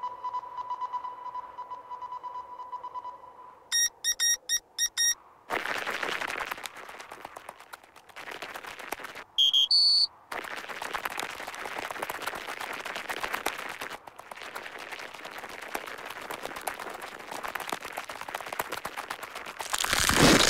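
Cartoon sound effects for marching ants. A steady high whistling tone with light ticking gives way to a quick run of five squeaky chirps. Then comes a long grainy crunching of small feet trudging over snow, with one short squeak about ten seconds in and a louder rush at the very end.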